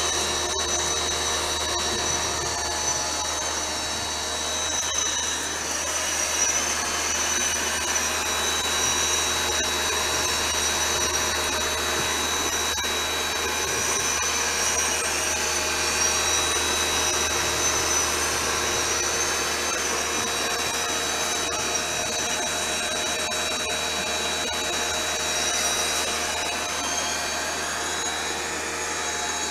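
Nilfisk C135.1 pressure washer running steadily, a constant motor-and-pump whine with the hiss of water spraying out through the rotating soft-bristle multi-brush head as it scrubs a car's bodywork.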